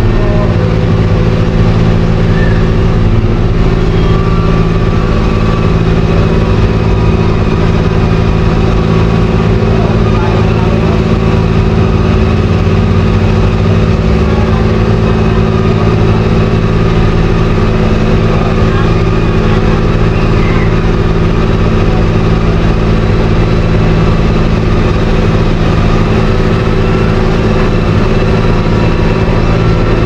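Heavy diesel road-construction machinery running steadily: a loud, constant engine drone that holds one speed with no revving or pauses.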